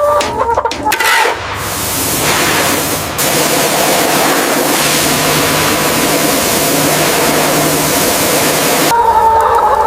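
A loud, steady rushing hiss starts about a second in and cuts off abruptly near the end, with a faint low hum beneath it. Chickens clucking are heard briefly at the start and again after the hiss stops.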